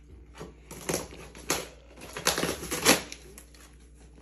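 Paper and cardboard rustling and crinkling in several short bursts as the flaps of a cardboard shipping box and the papers lying on its lid are handled.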